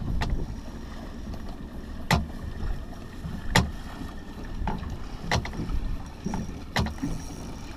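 Small boat rocking on choppy sea: steady wind and water noise with sharp knocks every second or two at uneven spacing.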